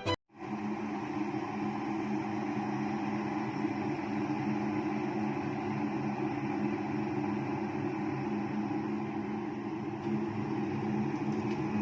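Stainless steel electric kettle heating water: a steady rushing noise with a low hum.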